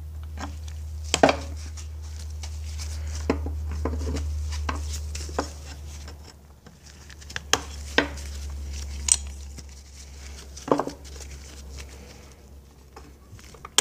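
Scattered sharp metallic clicks and clinks of pliers working at a hose clamp and zip ties on an outboard engine's fuel hoses, over a steady low hum.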